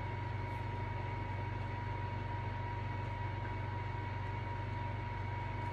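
A steady low hum with a thin, constant high whine over it, unchanging throughout, and no other sound.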